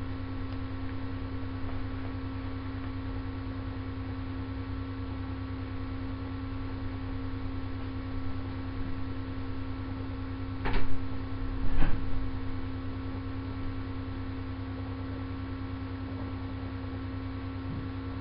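Steady electrical hum, with two loud thumps about a second apart near the middle.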